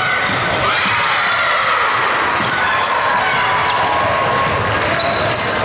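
Basketball game sounds in a large gym: the ball bouncing on the hardwood court as players dribble, under a constant hubbub of players' and spectators' voices.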